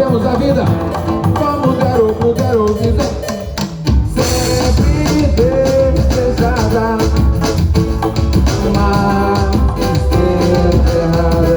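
Samba music with drum kit, percussion and guitar, with melodic lines and some singing over a steady beat. About four seconds in the music dips briefly, then comes back in full.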